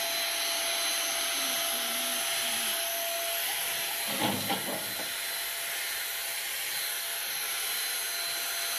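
Handheld electric paint spray gun running steadily, a motor whine with a hiss of air and atomised paint as it sprays. A short louder noise about four seconds in.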